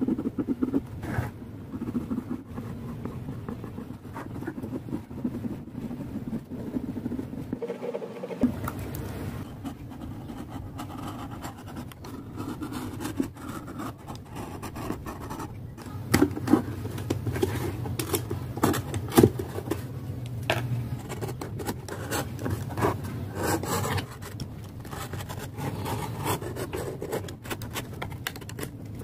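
A pen scratching circles onto a board, then a snap-off utility knife scoring and cutting around the circles in repeated scraping strokes, with a few sharp clicks after the midpoint.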